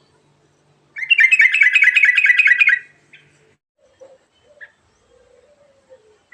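Yellow-vented bulbul (trucukan) singing a fast rolling song: a quick run of repeated notes, about ten a second, lasting nearly two seconds, followed by a few faint short chirps.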